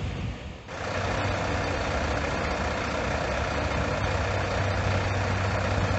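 Fire truck engine idling steadily: a constant low hum under a broad rush of engine noise, coming in abruptly less than a second in after a brief dip.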